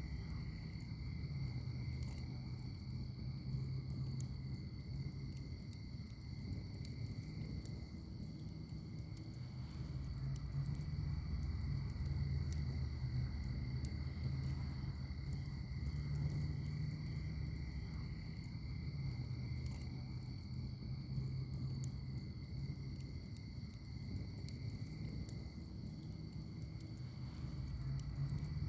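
Wood fire in a firepit crackling, with scattered small pops over a low rumble of burning. A steady high insect drone at two pitches runs underneath it.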